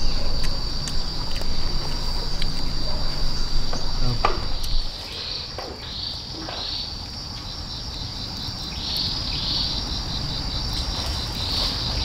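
Insects trilling steadily at a high pitch, with an evenly pulsing chirp joining in the second half. Louder low noise fills the first few seconds, and a few short falling whistles come near the middle.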